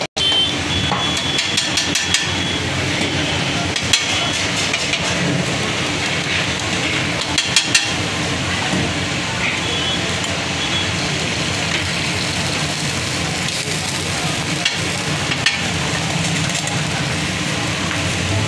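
Dosas sizzling on a hot flat steel griddle, with a few sharp metal clinks and scrapes as the potato masala filling is spooned on and spread with a spatula.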